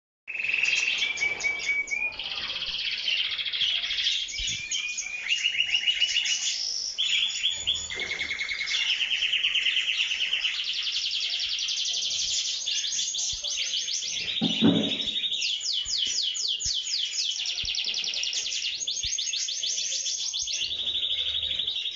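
Domestic canary singing a long continuous song of rapid rolled trills, each held a second or two before jumping to a new pitch. A brief low rustle or bump sounds under the song about two-thirds of the way through.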